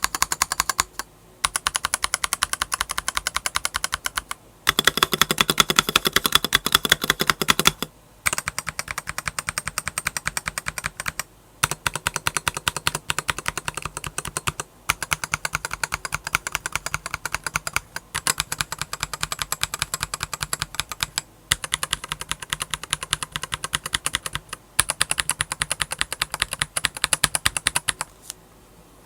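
Fast typing on an Akko 5075 mechanical keyboard, rapid key clicks in runs of about three seconds with brief pauses between them. One run about five seconds in is louder and deeper.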